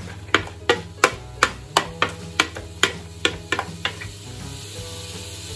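Diced onions being tapped out of a plastic chopper container into a stainless-steel pot, with a run of sharp, evenly spaced knocks about three a second that fade out after about four seconds. A soft sizzle follows as the onions start to sweat in melting butter.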